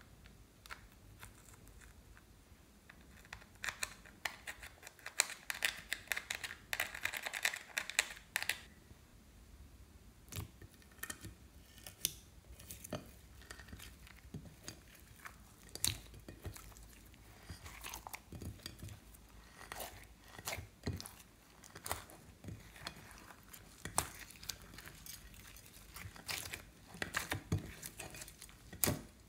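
Hands squishing and kneading clear slime mixed with glitter and crushed eyeshadow in a glass dish, giving irregular wet clicks, crackles and pops. In the first third, a few seconds of dense scratchy crackling as pressed eyeshadow is scraped out of its palette with a fork.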